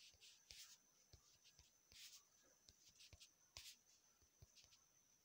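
Near silence with faint, irregular soft taps and brief hissy rustles, a few a second: fingertips tapping a phone's touchscreen to tick contacts one after another.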